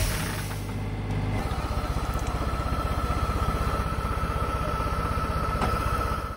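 Tractor engine running steadily with a rapid pulse, driving a hydraulic tree shaker. A thin steady whine joins about a second and a half in, and the sound cuts off abruptly at the end.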